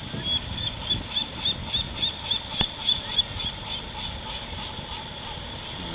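Outboard motor of a small fishing panga running at a distance over low wind and water noise. Through the first half a rapid series of short high chirps, about four a second, sounds over it.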